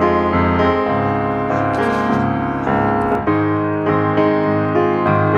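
Piano music, notes and chords struck at an even, moderate pace.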